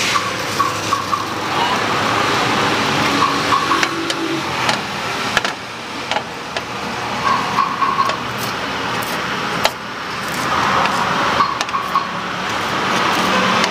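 Steady roadside traffic noise, with a wooden spatula scraping and knocking on small metal crepe pans now and then.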